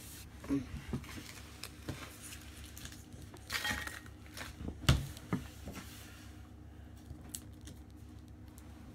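Small plastic toys handled and set down on a wooden table: a scatter of light clicks and knocks, the loudest about five seconds in, then quiet handling.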